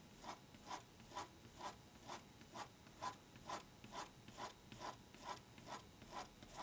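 Rotring Tikky 0.7 mm mechanical pencil with HB lead scratching on paper in quick, even strokes, about two a second, as lines are drawn back and forth. The sound is faint.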